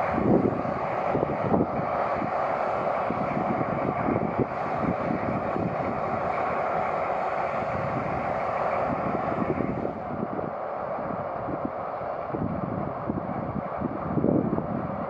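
Twin diesel engines of a DR class 118 (V180) diesel-hydraulic locomotive running steadily as it rolls slowly along with its train. Strong wind buffets the microphone throughout, with gusts rumbling underneath.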